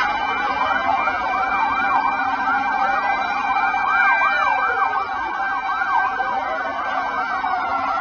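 Several emergency-vehicle sirens wailing together, their rising and falling pitches overlapping at different speeds, over a steady hum of held tones.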